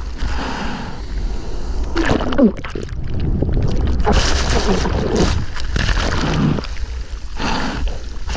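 Sea water splashing and sloshing right at a GoPro as a surfer paddles out through big surf, in surges that swell and fade, loudest midway, over a steady low rumble of moving water.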